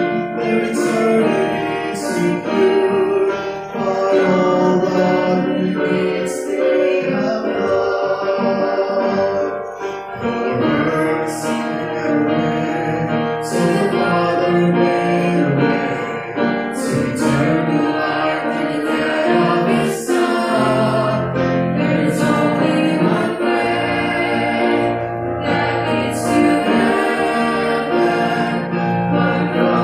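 Vocal trio of two women and a man singing together, with keyboard accompaniment.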